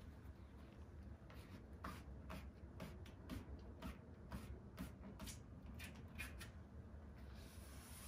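Faint scratchy rustling and a series of short ticks, roughly two a second, as hands press and smooth the edge of a home-made insect screen into place along a window frame.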